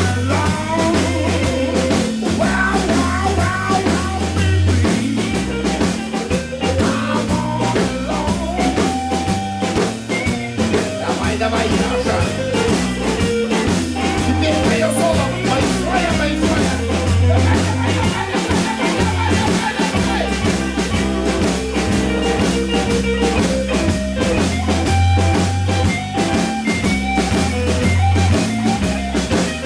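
Live blues band playing an instrumental stretch: electric guitars, bass guitar and a drum kit keeping a steady beat, with a lead line of sliding, bent notes over the top.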